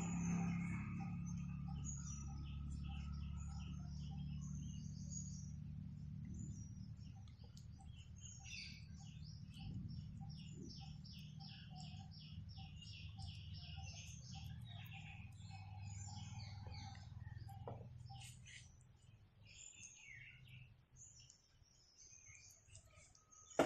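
Small birds chirping and calling, with a quick run of evenly repeated chirps in the middle, over a low steady hum.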